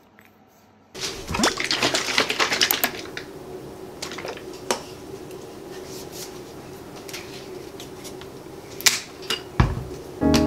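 A quick run of clinking ice cubes in a tall drinking glass lasting a couple of seconds, then a few single light clinks as things are handled on the counter, over a faint steady hum.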